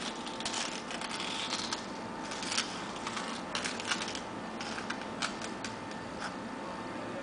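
Serrated stainless-steel jalapeño corer twisting and scraping inside a raw jalapeño, giving irregular crisp scrapes and crunches as it cuts out the ribs and seeds.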